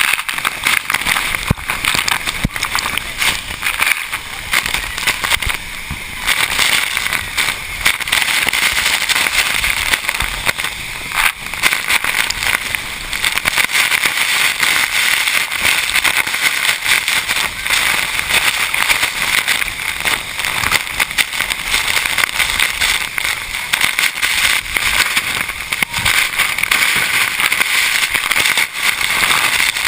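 Pulhapanzak waterfall close up: a loud, steady rush of falling water, full of fine crackle.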